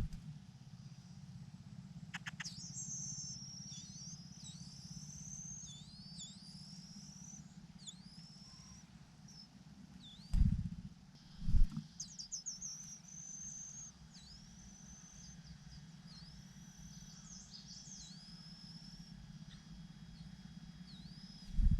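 Small birds calling in short, high, slurred chirps throughout, with a quick trill about halfway, over a steady low hum. Two dull low thumps about halfway through are the loudest sounds.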